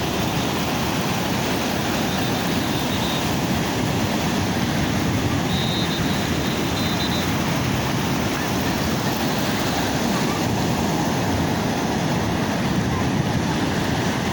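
Sea waves washing onto the shore: a steady, unbroken rush of surf.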